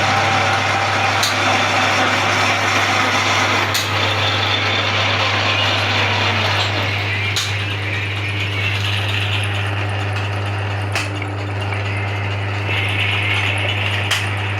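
Manual metal lathe running: a steady motor hum with gear-train noise, and a sharp click every three to four seconds.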